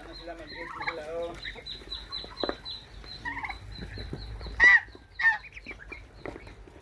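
A poultry flock of turkeys, Muscovy ducks and chickens calling as they feed: clucking and short calls, with a high chirp repeating throughout and two louder squawks about five seconds in.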